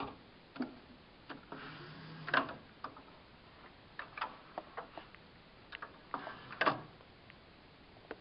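Irregular clicks and knocks of plastic printer parts as the HP Designjet 800 carriage assembly is handled and slid by hand, with two louder knocks about two and a half and six and a half seconds in.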